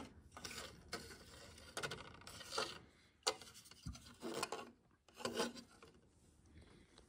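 A plastic model car interior tub with a roll cage handled and shifted on a wooden tabletop: faint, intermittent rubbing and scraping, a handful of short scuffs.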